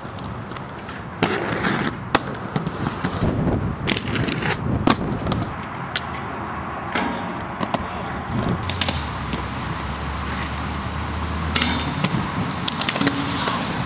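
Roller skate wheels rolling on concrete, broken by many sharp clacks and knocks as the skates land and grind on ledges and a metal handrail.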